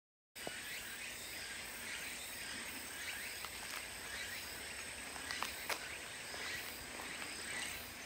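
Woodland insects calling: a dense chirring haze with one steady high-pitched drone on top, starting after a brief silence. A few light clicks stand out about five seconds in.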